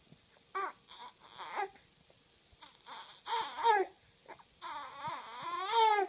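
A 19-week-old baby vocalizing in a few short pitched calls, then one longer call that rises and falls in pitch near the end, the loudest of them.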